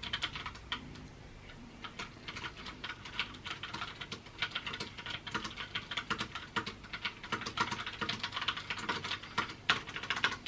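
Typing on a Logitech POP Keys mechanical keyboard: quick, irregular key clicks, thinning out briefly about a second in.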